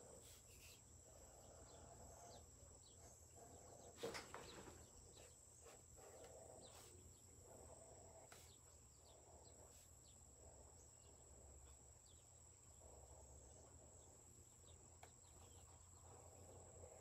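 Near silence: a marker faintly scratching across tracing paper in short strokes, over a steady faint high-pitched whine, with one light knock about four seconds in.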